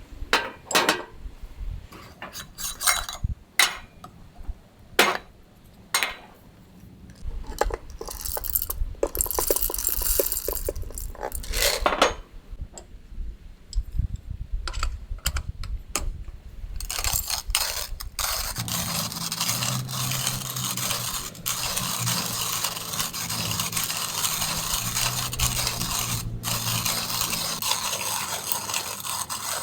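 Metal camp cookware and utensils clinking, knocking and scraping in a series of separate strikes. About halfway through, a steady, even hiss takes over with a low hum beneath it.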